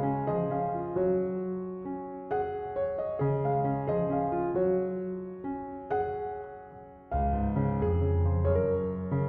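Background piano music: a gentle melody of struck notes over chords, with a fuller, louder bass part coming in about seven seconds in.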